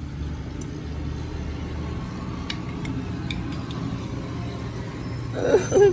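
Steady low rumble of a vehicle engine running in the background, with a few faint light clicks of small metal brake parts being handled.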